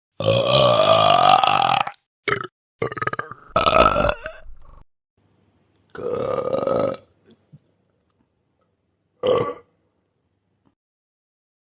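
A string of about six burps of different lengths, with dead silence between them: a long one first that rises in pitch, then several shorter ones.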